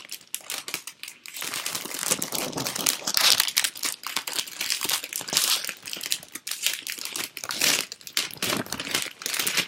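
Crinkly packaging rustling and crackling continuously as craft supplies are rummaged through and handled.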